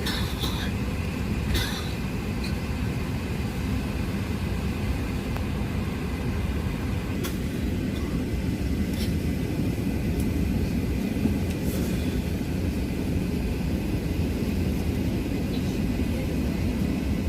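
Steady low rumble of aircraft cabin noise inside an Airbus A380, with a faint steady high whine and a few light clicks.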